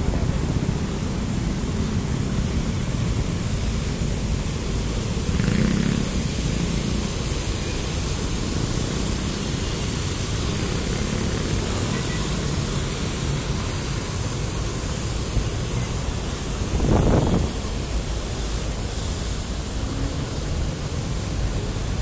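Fountain water jets splashing: a steady hiss over a low rumble, with a brief louder rush about seventeen seconds in.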